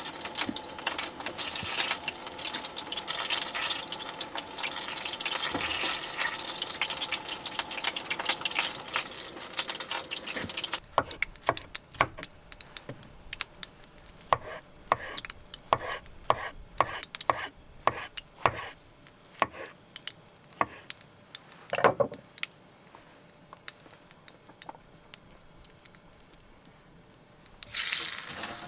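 Tap water running steadily into a sink for about the first eleven seconds, then stops abruptly. Then a knife slicing vegetables on a wooden cutting board: irregular sharp knocks with one heavier thud. Near the end, food starts sizzling in a frying pan.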